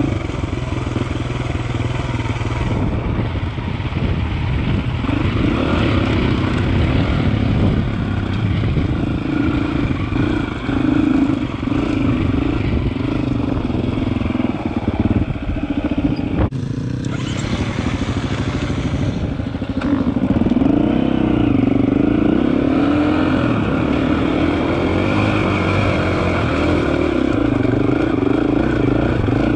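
KTM Freeride enduro motorcycle engine running as the bike is ridden along a dirt trail, its pitch rising and falling with the throttle. The sound breaks off abruptly about halfway through, then picks up again.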